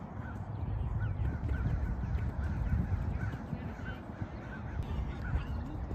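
Birds calling repeatedly in the distance, about two calls a second, over a low rumble of wind on the microphone.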